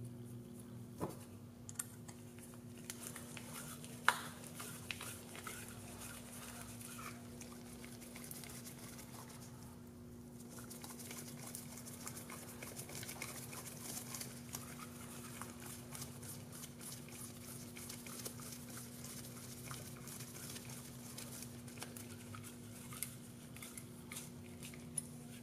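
Faint scattered clicks and light ticks of small metal parts being handled as an M3 screw is screwed by hand into a snug hole in a drone frame's arm stack, with one sharper click about four seconds in. A steady low hum runs underneath.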